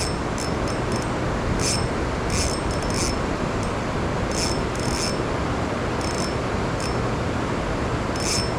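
Steady rushing noise of water and wind as the kayak is towed along by a large hooked fish, with about seven short high-pitched zips at irregular intervals as the ultralight spinning reel's drag gives line.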